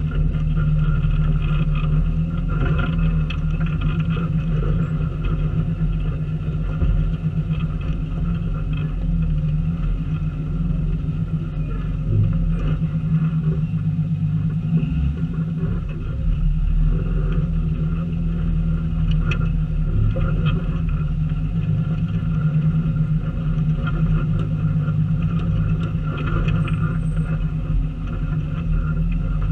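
Off-road 4x4's engine running at low speed as the vehicle crawls over a rocky trail, a steady low drone with a few light clicks and knocks scattered through it.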